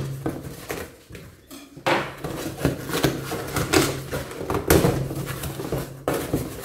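Cardboard box being opened by hand: packing tape tearing and the cardboard flaps scraping and crackling as they are pulled up, in several rough stretches with sharp clicks.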